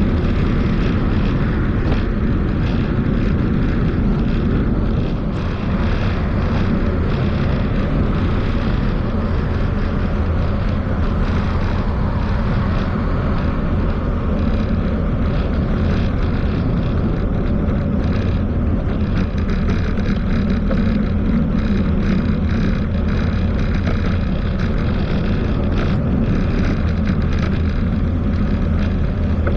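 Steady low wind rumble on the microphone of a camera riding along on a bicycle, mixed with tyre and road noise, unchanging throughout.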